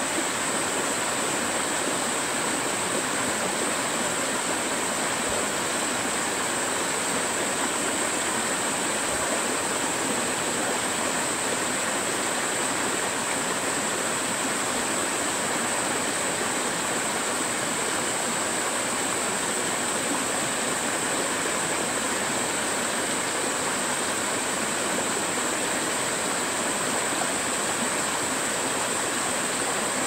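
Small mountain stream splashing down a short rocky cascade, a steady rush of water, with a steady high-pitched hiss on top.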